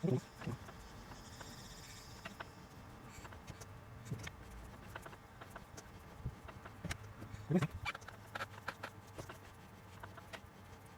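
Quiet, scattered clicks and light taps of hands and a grease tube at work, packing CV-joint grease into a drive shaft's outer constant-velocity joint, a few louder taps about seven to eight seconds in.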